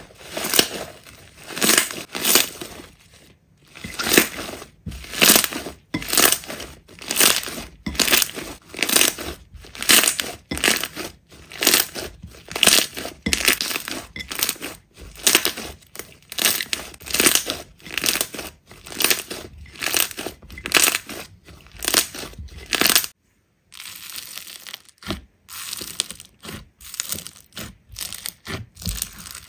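Slime being squeezed and pressed by hand, a steady run of short sharp squishes about two a second. The run breaks off for about a second near the end, then comes back quieter.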